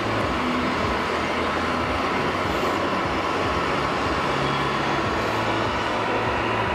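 Steady mechanical running noise with a low hum that comes and goes, from a radio-controlled scale model Case IH Steiger 600 Quadtrac tractor crawling on its tracks through loose dirt.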